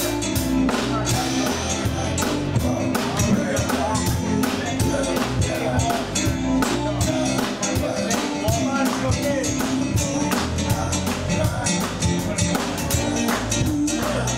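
Church band playing a hymn, with a drum kit keeping a steady beat over a sustained bass line.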